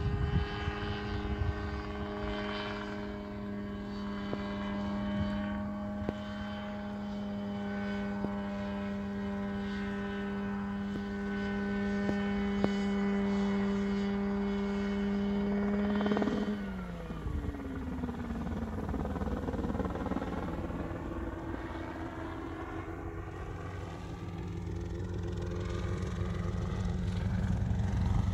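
Mosquito ultralight helicopter in flight, its engine running at a steady pitch. About two-thirds of the way through the engine note falls away steeply as power is cut for an autorotation, leaving the rotor's whooshing sound, and near the end the sound slowly rises and grows louder again.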